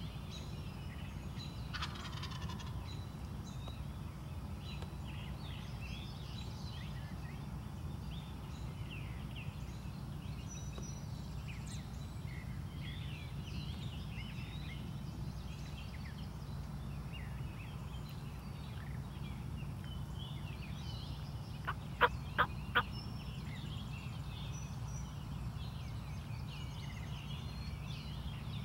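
Wild turkey gobbler gobbling once, a loud rapid rattle of four pulses about three-quarters of the way in. Small birds chirp throughout over a steady low background hum.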